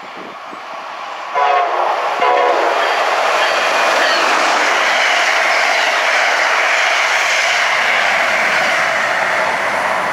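Amtrak passenger train on the electrified Northeast Corridor sounds two short horn blasts, then passes close by at speed. The rush of wheels on rail is loud and steady.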